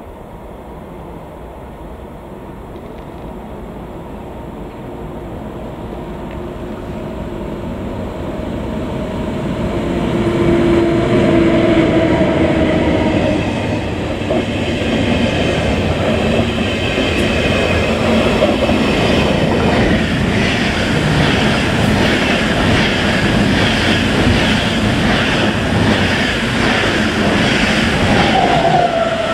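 A train approaching and rolling past close by at moderate speed: the rumble grows steadily louder for about ten seconds, then holds loud with a regular clickety-clack of wheels over the rail joints and a few short whining tones from the running gear.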